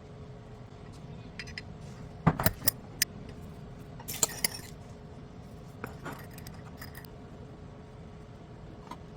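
Sharp clinks and clatters of small hard objects being handled, loudest in a quick cluster about two and a half seconds in. A short rustling scrape follows about four seconds in, with a few lighter clicks after it, over a steady faint hum.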